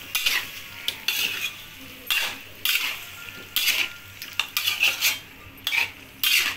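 Ladle scraping and clanking against a metal wok while stirring chicken and vegetable pieces, in repeated strokes about one to two a second.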